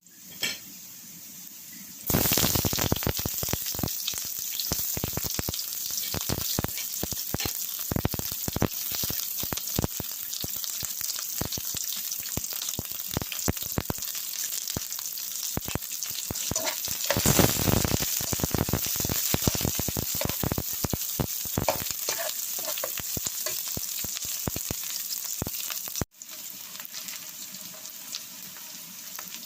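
Food frying in hot oil in a pan: a loud sizzle with dense crackling and popping that starts abruptly about two seconds in. It cuts off suddenly near the end, leaving a softer, steady sizzle.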